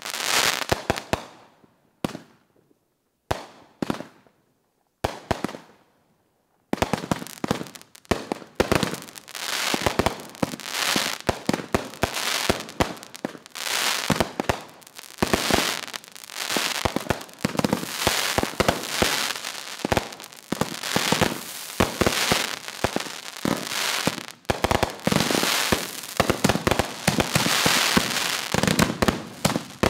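Consumer aerial fireworks going off in a backyard show. A few separate bangs with short silent gaps come first; then, from about seven seconds in, a dense, continuous barrage of shots and bursting breaks runs without pause.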